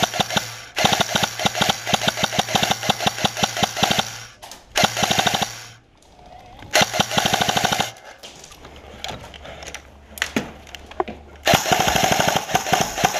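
Airsoft guns firing long full-auto bursts: rapid, even clicking over the whir of the gun's motor. The bursts come in about four runs, with a quieter stretch of scattered distant shots before the last, loudest burst near the end.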